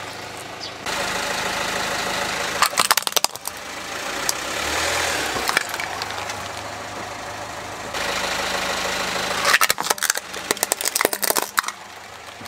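A car's tyre rolls over plastic toys and crushes them: two spells of sharp cracking and snapping, around three seconds in and again near ten seconds. The car's engine runs low and steady throughout.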